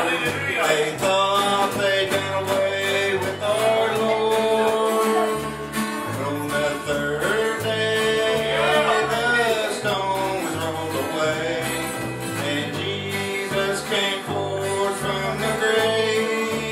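A live gospel song: acoustic-electric guitar strummed and electric bass guitar playing steady low notes, with a man singing over them.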